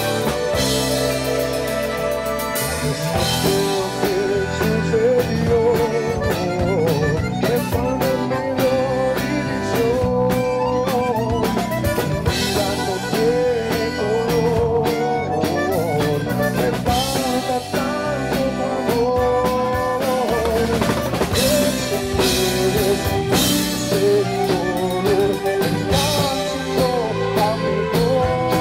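Tejano band playing an instrumental passage, an accordion carrying a wavering melody over a steady drum-kit beat.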